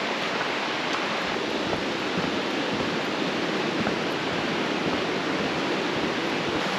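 Rushing river water, a steady even rush with no breaks.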